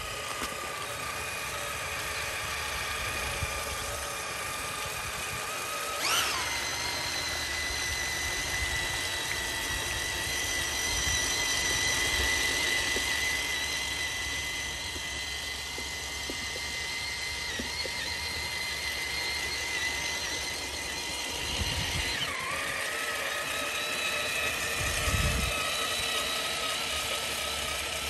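Traxxas TRX-4 Sport RC truck on rubber tracks driving, its electric motor and gearbox making a steady whine. The pitch jumps up about six seconds in and dips and recovers around twenty-two seconds as the throttle changes, with a couple of brief low rumbles near the end.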